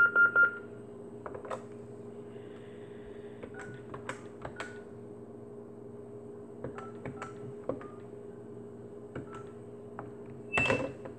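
Keys on an RCA amplified corded speakerphone being pressed, scattered short clicks with faint beeps, over a faint steady low hum. A brief louder sound comes about ten and a half seconds in.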